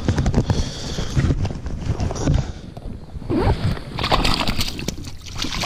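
Water splashing and sloshing as a rainbow trout is handled in a rubber-mesh landing net in shallow water, with irregular knocks and rustles from hands and net close to the microphone.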